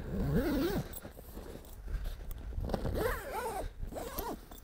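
Zipper on a Fishcat pontoon's outer cover being pulled closed over the newly installed bladder, in two runs: one right at the start and another about three seconds in.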